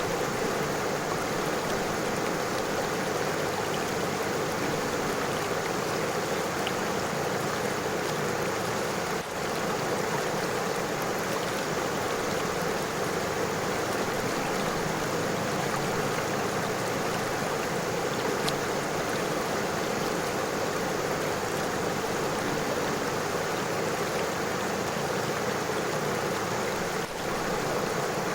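River water flowing over stones: a steady, even rushing with no pauses, briefly dipping in level about nine seconds in and again near the end.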